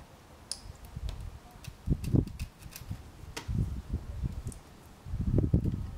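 Engine oil glugging out of a plastic bottle into an engine's oil filler, in three low gurgling swells about two, three and a half, and five seconds in, with a few light clicks.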